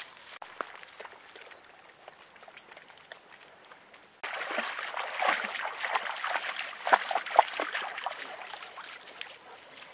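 Quiet at first, then from about four seconds in, shallow lake water splashing and trickling with many small sharp splashes as dogs wade through it.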